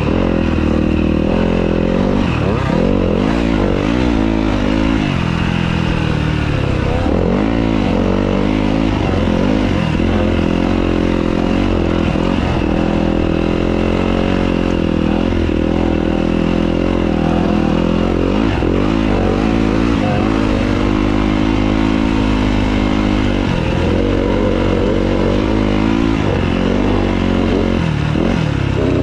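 Yamaha YZ250F four-stroke single-cylinder dirt bike engine heard from on the bike while riding, its pitch rising and falling every few seconds as the throttle is opened and rolled off.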